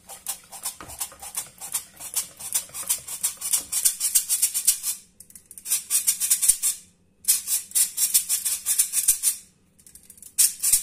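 Stainless steel squeeze-handle flour sifter working flour through its mesh: a fast, even rasping rattle with each squeeze, in several bursts with short breaks between.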